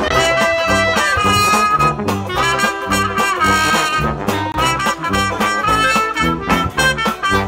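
Background music: swing-style jazz with brass instruments over a stepping bass line and drums.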